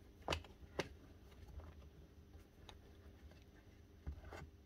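Faint clicks and taps of parts and wiring being handled and fitted into a Makita DUH502 hedge trimmer's housing. Two sharper clicks come in the first second, a few fainter ones follow, and a small cluster comes near the end, over a low steady hum.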